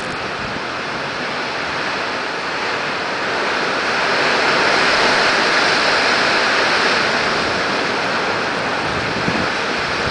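Strong wind rushing through the trees and shrubs, a steady surf-like roar that builds to its loudest about four to six seconds in and then eases slightly.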